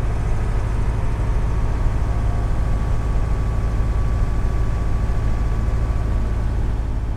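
Mercedes 608D truck driving at a steady speed: its diesel engine running under a constant, heavy low rumble of engine and road noise.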